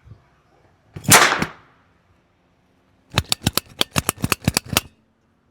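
Nail gun firing: one loud sharp shot about a second in, then a quick run of about a dozen sharp clacks, some seven a second, about three seconds in.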